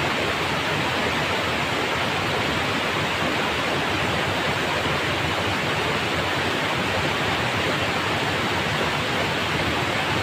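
Steady rush of water pouring down a small cascade into a shallow stream pool, an even hiss-like noise at a constant level.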